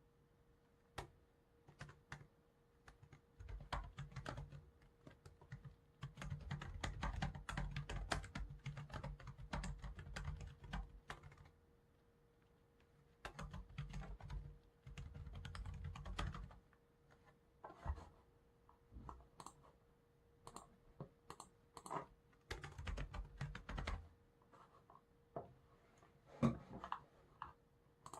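Computer keyboard typing in bursts of rapid keystrokes a few seconds long, with pauses between them that hold scattered single clicks.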